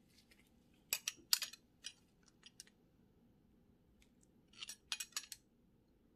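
Small metal clicks and clinks of hand tools and parts being handled on a bicycle hub: a few sharp ticks about a second in, scattered lighter ones after, and a quick cluster of clicks near the end.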